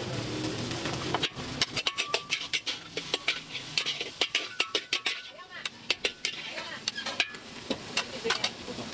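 Metal spatula clinking and scraping in a wok, with many quick, irregular strikes and voices in the background.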